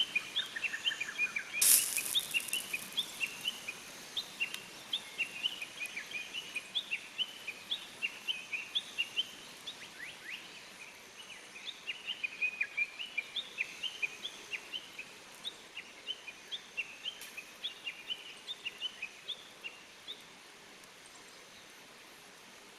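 Small songbirds chirping in quick twittering runs that stop shortly before the end, with one sharp snap about two seconds in.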